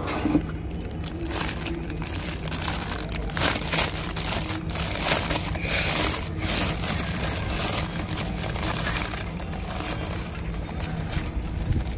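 Clear plastic bag crinkling and rustling as it is handled and pulled open, with irregular crackles throughout.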